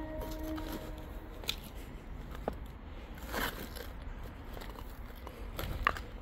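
Footsteps crunching over debris, with scattered soft crunches and clicks, a longer crunch about three and a half seconds in and a sharp click near the end. A held musical tone dies away in the first second.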